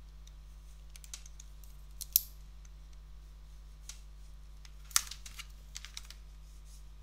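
Scattered clicks and taps of a computer keyboard and mouse while a document is edited, the loudest about two and five seconds in, over a steady low electrical hum.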